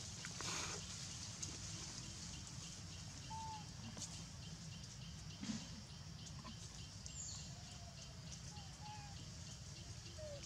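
Forest ambience: a steady background hiss and a steady high, pulsing buzz, with a few faint short calls, one about three seconds in and a couple near the end, and brief rustles.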